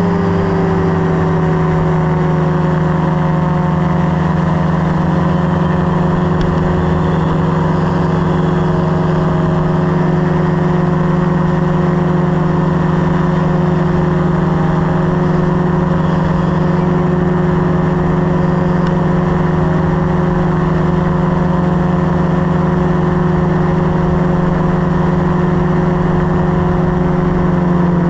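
Paramotor trike's engine and caged propeller running at steady high power as it climbs out after takeoff. Its pitch eases down a little in the first second or so, then holds steady.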